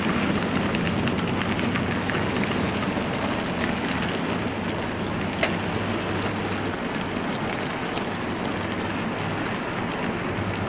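Rake of OO gauge model goods wagons rolling past on the track: a steady rattling rumble with scattered small clicks from the wheels over the rail joints, easing slightly as the end of the train goes by.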